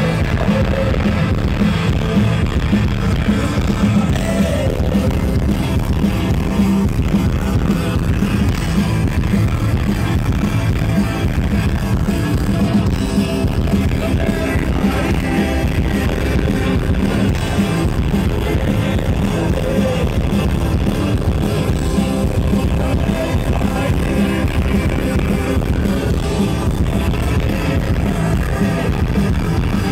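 Rock band playing a song live, loud: electric guitar, bass and drums with a male singer, heavy in the low end.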